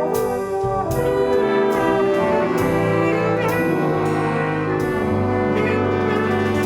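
A brass ensemble playing sustained chords that change every second or so, with sharp percussive accents roughly once a second.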